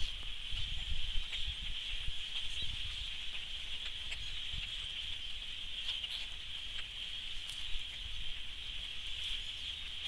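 A large flock of blackbirds calling all at once: a steady, dense chorus of many overlapping calls with scattered sharper notes, plus low rumbling buffets, strongest in the first second.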